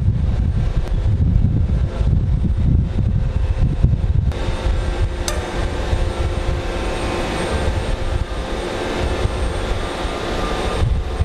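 Titanium forging line's roller conveyor and drive machinery running: a deep, loud steady rumble. About four seconds in, a steady multi-tone motor hum joins it, with one sharp click a second later.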